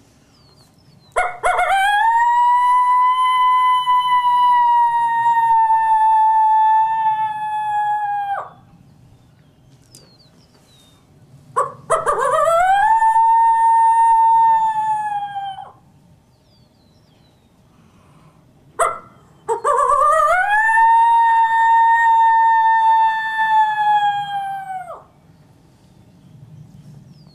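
Coyote lone howl made on a hand-held predator howler call: three long howls, each sweeping quickly up to a high held note that sags slightly before breaking off. The first howl is the longest, the second and third shorter.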